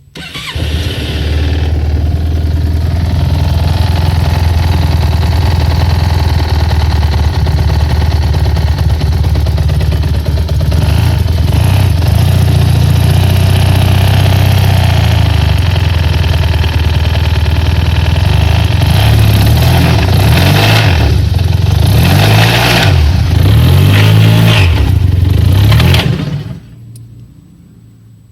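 Yamaha TMAX 500 scooter's parallel-twin engine starting, idling steadily, then revved several times in quick blips before being switched off near the end. It is run to show an engine knock.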